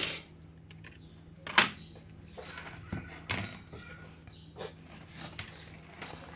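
A few sharp clicks and knocks of small hard objects set down or handled on a work surface, the loudest about a second and a half in, over a low steady hum.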